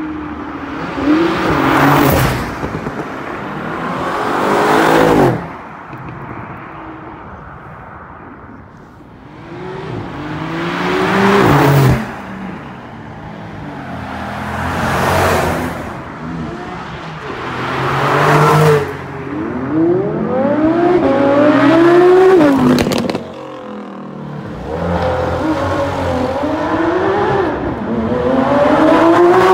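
A convoy of supercars accelerating past one after another, about seven loud pass-bys. Each engine revs up, its pitch climbing and then dropping back as it shifts gear.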